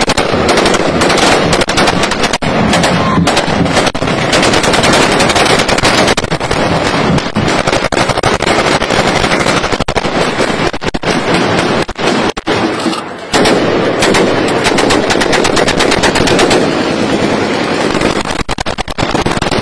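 Heavy celebratory gunfire: many weapons firing automatic bursts and single shots into the air at once, a dense, unbroken crackle of shots with a brief lull about twelve seconds in.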